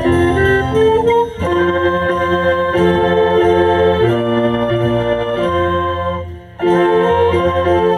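Small youth orchestra of strings, saxophones and brass playing held, organ-like chords. The music drops away briefly just after six seconds, then the ensemble comes back in together.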